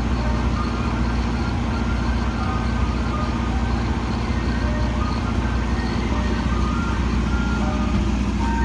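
Ice cream truck's engine idling with a steady low hum, while its electronic chime box plays a jingle of short high notes over it.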